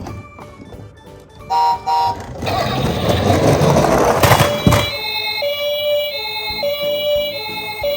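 A rushing, rumbling noise for a couple of seconds, then a two-tone ambulance siren stepping between a higher and a lower pitch in the Japanese 'pii-poo' pattern.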